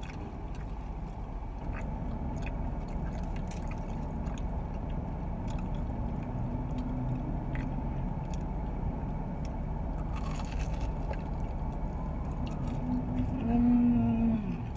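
Chewing and small mouth and food clicks from people eating corn dogs, over a steady low rumble inside a car. A short hummed voice sound comes near the end and is the loudest part.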